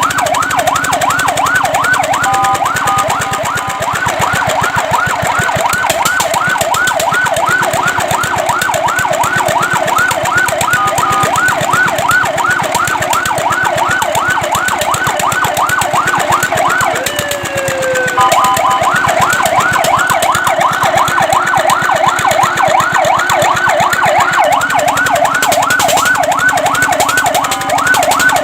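Fire truck's electronic siren in a fast yelp, sweeping up and down about five times a second. A few times the yelp gives way to a short steady tone, and about two-thirds of the way through it breaks off briefly with a slower falling glide before resuming.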